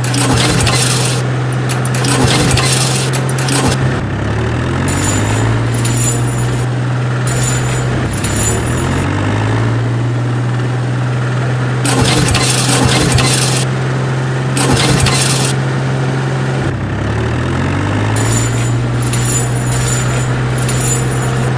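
Tractor engine running steadily, rising in pitch three times as it revs up and then holding. Bursts of clinking rattle come and go over it.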